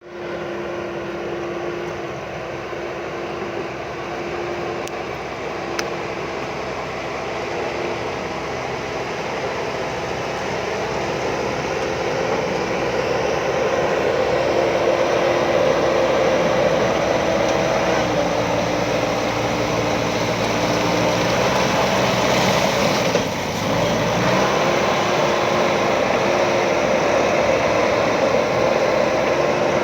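JCB backhoe loader's diesel engine running steadily while working, its pitch shifting a little a few times and the sound slowly getting louder.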